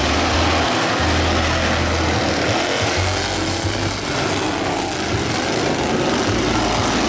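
Racing lawn mower engines running on a race track, a steady loud drone mixed with heavy noise.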